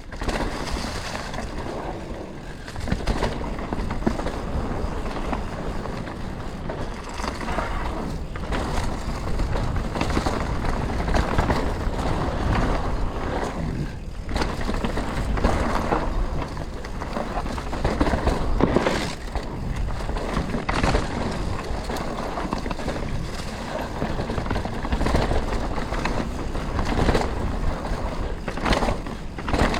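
Canyon Spectral 125 CF7 full-suspension mountain bike ridden down a rough dirt trail: continuous tyre noise on dirt and stones, with frequent knocks and rattles as the bike goes over rough ground.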